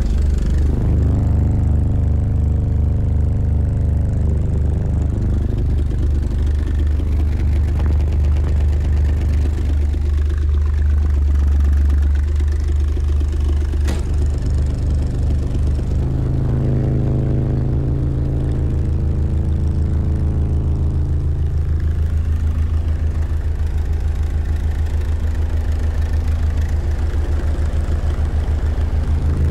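Loud, steady low bass test tones from a car audio system of seven subwoofers (four 12-inch, two 15-inch and an 18-inch) filling the car's cabin. The tones are held for several seconds at a time and shift in pitch partway through, stepping up from the lowest bass frequencies.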